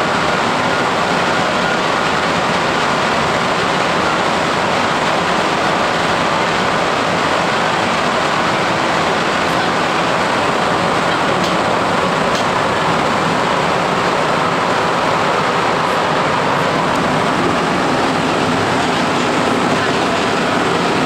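Rubber-tyred MR-63 metro car running at speed through a tunnel, heard from inside the car: a loud, steady rushing noise with a few faint ticks in the middle.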